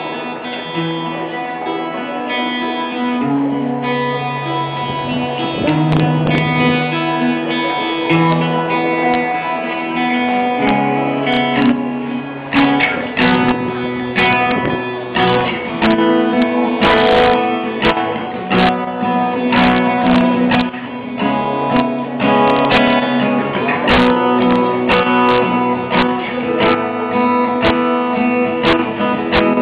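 Backing track of guitar-led music with held chords and a moving bass line; sharp percussive beats join about eleven seconds in.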